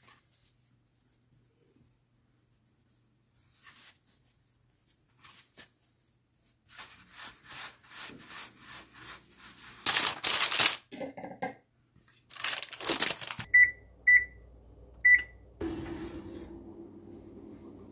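Hands kneading and patting bread dough on a wooden cutting board, soft rubbing and slapping sounds, followed by two loud rustling noises. Then an oven's control panel beeps three times, and a steady hum of the running oven starts as a glass casserole dish is set on the rack.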